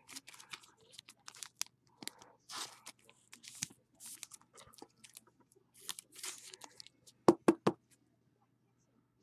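Scratchy plastic rustling and scraping as a trading card is slid into a sleeve and a rigid plastic toploader, followed by three quick sharp clicks of hard plastic a little after seven seconds in.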